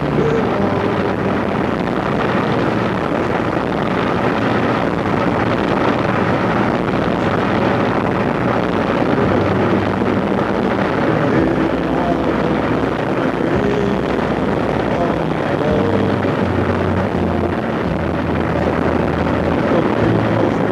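Steady rushing wind on the microphone mixed with the drone of a ship under way.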